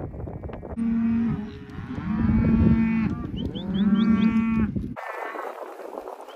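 Cattle mooing: three long, low calls about a second apart, over a low rumble that cuts off near the end. A few short high chirps come between the second and third calls.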